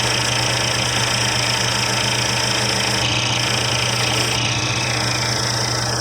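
Small motor-driven wire wheel spinning steadily while a rusty vintage screwdriver's steel shaft is pressed against it, the wire bristles scrubbing off rust with a hissing, scratching noise over the motor's steady hum.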